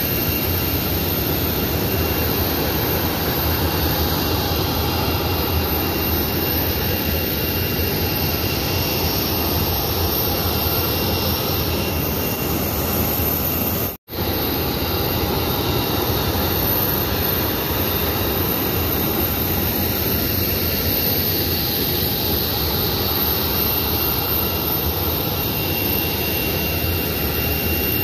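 Aircraft engines running on an airport apron: a loud, steady rush with a faint high whine over it, broken by a brief gap about halfway through.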